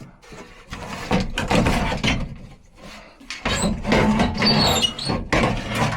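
Irregular knocks, rattles and scrapes of hard parts being handled while a blower fan motor is worked out of its housing.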